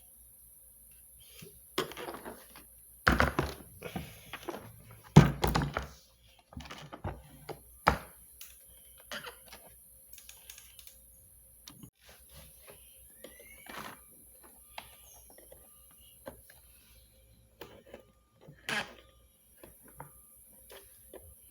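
A Miele vacuum cleaner's housing and parts being handled and knocked during disassembly: scattered clicks and knocks, with the loudest thunks about three and five seconds in.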